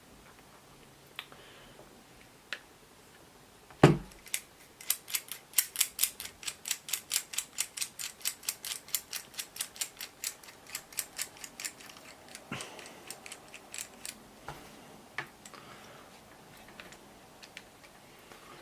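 A knock, then a fast, even run of sharp clicks, about five a second, for some eight seconds, then a few scattered taps as small mount parts are handled.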